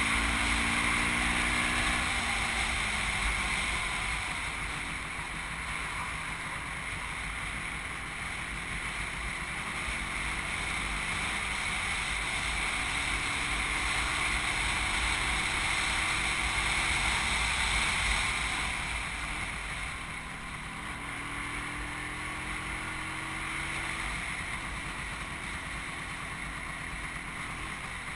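Engine of the vehicle carrying the camera, running while it drives down the street, under a steady rush of wind and road noise. The engine pitch falls near the start and rises again twice, about halfway through and later on.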